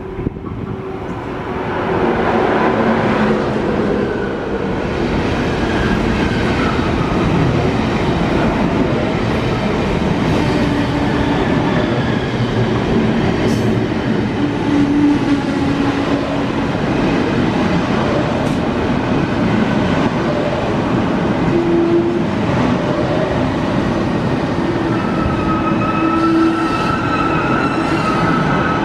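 ICE high-speed train pulling into a station alongside the platform and slowing, its wheels rumbling on the rails. High squealing tones come in near the end as it brakes.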